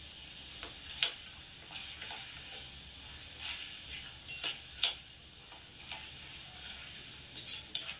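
Dried chickpeas deep-frying in hot oil with a steady sizzle. A metal slotted spoon stirs them, giving sharp clicks against the wok about a second in, twice around the middle, and several times near the end.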